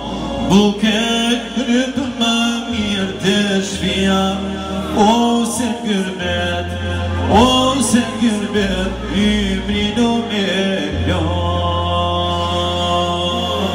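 A man singing an Albanian gurbet song (a song of emigration) into a microphone, in long wavering, ornamented notes. Low held notes sound underneath and shift pitch a few times.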